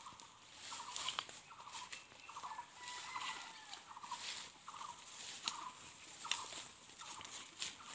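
An animal giving short, pulsed calls over and over, about one every two-thirds of a second, with light rustling in between.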